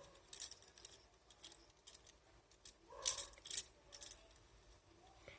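Faint scattered clicks and clinks of a fidget toy being handled, with a louder cluster of clinks about three seconds in.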